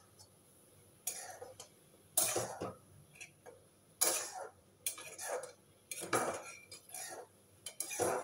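Spatula scraping and stirring noodles in a steel wok on a gas stove: a dozen or so irregular metal scrapes, each under a second long.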